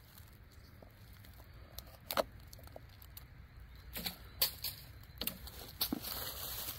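A few scattered light knocks and taps of a knife and a small stick being handled against a log's bark, with a short rustle near the end.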